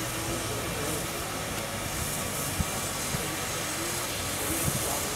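Steam locomotive creeping forward at low speed, giving a steady hiss of steam with a few dull knocks, the loudest about two and a half seconds in.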